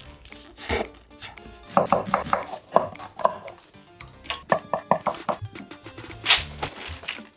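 Quick runs of knife strokes chopping on a cutting board, with other short kitchen clatter, and a crisp bite into pizza crust near the start.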